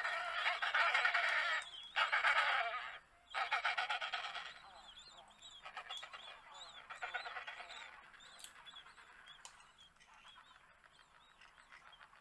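A group of banded (Spheniscus) penguins calling, a dense chorus of rapid pulsing squawks. It is loud for the first four seconds or so, broken by two short gaps, then thins to quieter, scattered calls.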